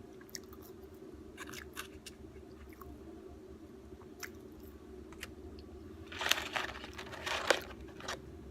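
A person chewing and biting McDonald's food close to the microphone: small wet clicks and crunches, with a louder stretch of crunching about three-quarters of the way through, over a steady low hum.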